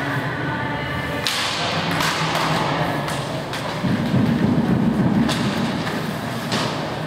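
Roller hockey play: a sharp hit about a second in, followed by a fading hiss, then scattered lighter clacks of sticks and puck. A louder low rumble runs from about four to five and a half seconds in.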